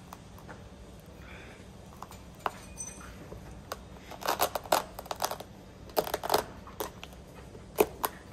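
A small metal hand tool clicks and scrapes as it is worked into the base of an upholstered sofa arm. The sounds come in short irregular clusters about four and six seconds in, with one sharp click near the end.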